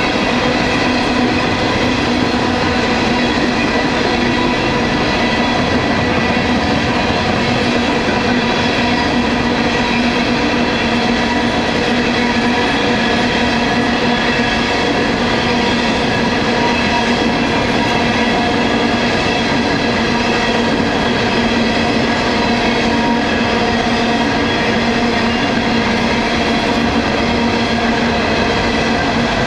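A long freight train of coal hopper cars rolling past at close range, its wheels and cars making a loud steady rumbling clatter. A constant pitched ringing runs over it the whole time.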